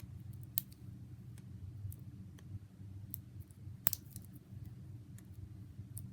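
Putty being handled and pressed by hand, giving scattered sharp clicks and small sticky pops, the loudest about half a second in and again near four seconds. A steady low hum runs underneath.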